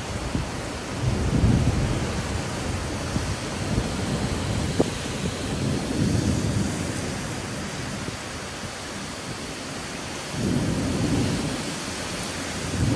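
Heavy downpour of rain hissing steadily, with low rumbling swells rising three times, about a second in, in the middle and near the end.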